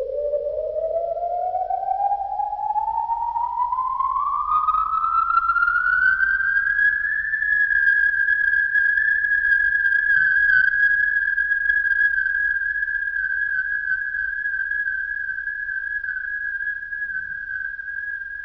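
A single electronic tone, like a theremin or synthesizer, glides steadily upward in pitch for about seven seconds and then holds one steady high note.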